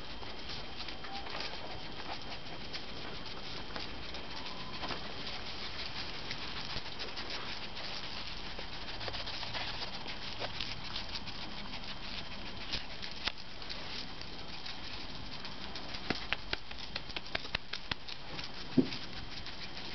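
Several pet skunks' claws clicking and scrabbling on brick paving as they scurry about, a scatter of small sharp clicks over a steady outdoor hiss, coming thicker and louder near the end.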